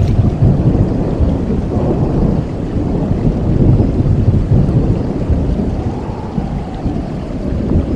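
Low, continuous rolling rumble like distant thunder, used as a horror sound effect, surging and easing slightly with no sharp cracks.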